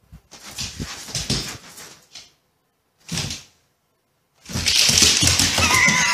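A dog's noises in short bursts, ending with a wavering whine.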